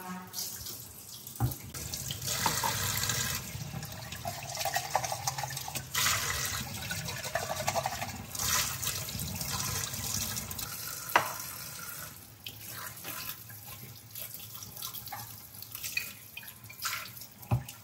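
Tap water running and splashing into a sink while dishes are washed by hand, with a few sharp clinks of dishes, the loudest about eleven seconds in.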